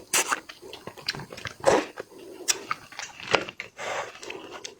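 Close-miked chewing and lip-smacking while eating seafood roe and meat: irregular wet clicks and smacks, a few louder ones spaced about a second apart.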